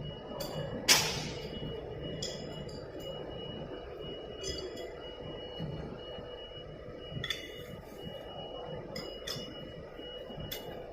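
Scattered metallic clinks and knocks as the spin-on oil filter of a rotary screw air compressor is loosened and taken off, metal tools and the filter striking the housing and drain pan. A sharp knock comes about a second in, then several lighter clinks, over a faint steady hum.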